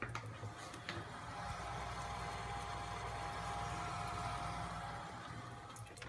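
Homemade dry-aging mini fridge running with a faint, steady low hum and a thin steady whine, with a light click about a second in as its door is handled.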